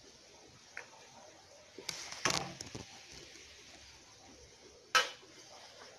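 Spoon and stainless steel pot knocking and clinking, with a cluster of knocks about two seconds in and one sharp knock, the loudest, about five seconds in.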